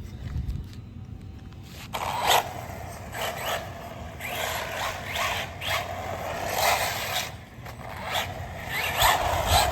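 Arrma Typhon Grom RC car driving in repeated throttle bursts: the electric motor whine rises and falls with each burst, over the scraping of its tires on the ground, starting about two seconds in.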